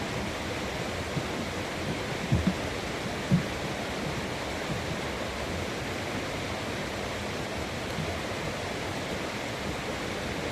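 Steady rushing noise, with a few brief low thumps about two and three seconds in.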